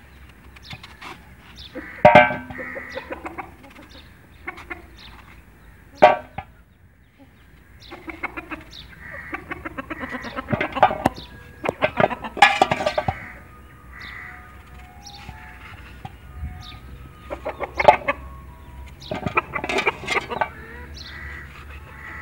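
Chickens calling, along with sharp knocks from a knife slicing a peeled bottle gourd by hand. The gourd pieces drop into an aluminium pot. The loudest knocks come about 2, 6, 12, 18 and 20 seconds in.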